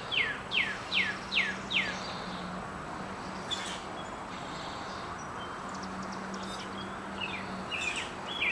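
A songbird calling in a run of quick downward-sliding chirps, two to three a second, in the first two seconds and again near the end. Under it, a faint steady hum of honeybees flying around the swarm trap.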